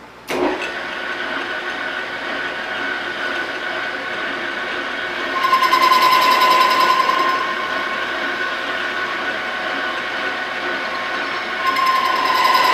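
Victor lathe switching on and running, turning a drill-rod workpiece. About five seconds in it grows louder for a couple of seconds with a steady ringing tone as the tool bit cuts the steel, and again near the end.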